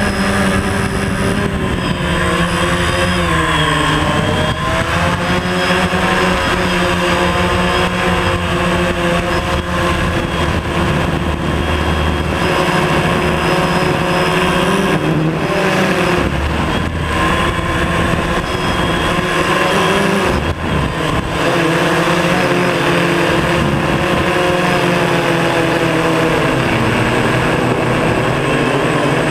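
DJI Phantom quadcopter's electric motors and propellers whining in flight, heard from the camera mounted on the drone. The pitch slides down and back up a few times as the motor speeds change.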